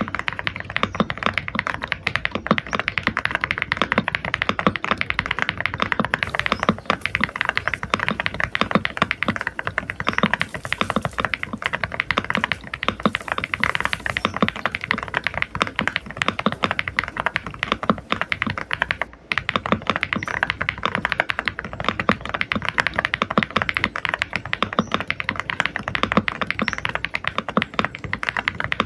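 Furycube FC75 mechanical keyboard being typed on fast, a dense, continuous run of keystrokes with a deep, muted thock. The typing breaks off briefly about two-thirds of the way through, then carries on.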